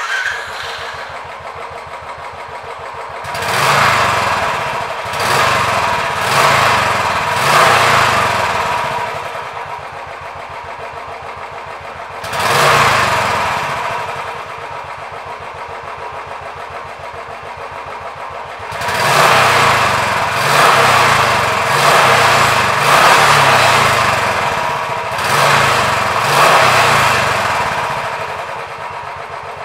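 BS4 Royal Enfield Classic's single-cylinder engine idling through its stock silencer in even pulses, revved up by short throttle blips several times in the first eight seconds, once near the middle, and repeatedly through the last ten seconds.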